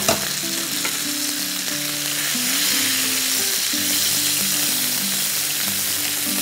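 Chicken pieces frying in hot oil in a pan, a steady sizzle, with a few clicks of metal tongs against the pan at the start as the pieces are turned. Soft background music plays underneath.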